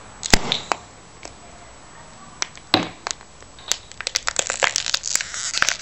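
Empty plastic water bottle twisted tight, its thin plastic crackling and clicking under the strain, and its cap blowing off with a sharp pop as the compressed air escapes. A run of rapid crinkling crackles follows near the end.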